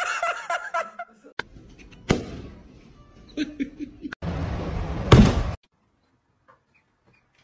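A person laughing, then a few sharp knocks and a short burst of hiss that cuts off suddenly.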